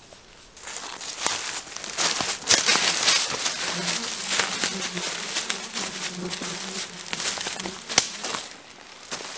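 Close rustling and crackling of spruce branches and dry forest-floor litter, full of small snaps and clicks, as someone pushes through undergrowth. A fly buzzes steadily through the middle stretch for about four seconds.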